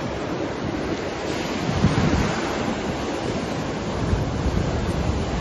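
Ocean surf breaking and washing in over the sand in a steady hiss of foam, with gusts of wind rumbling on the microphone.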